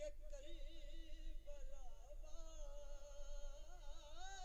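A man singing a devotional Urdu naat without accompaniment, drawing out long wavering notes with heavy vibrato. The pitch climbs near the end.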